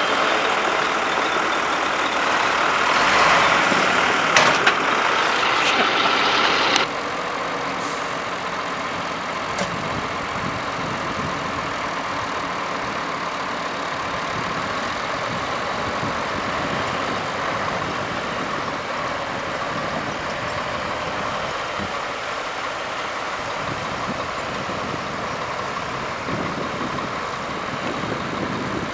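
Diesel engines of a farm tractor and a MAN semi-truck running together as the tractor tows the stuck truck with a strap. A few sharp knocks come about four to five seconds in. About seven seconds in the sound drops abruptly to a quieter, steady engine noise.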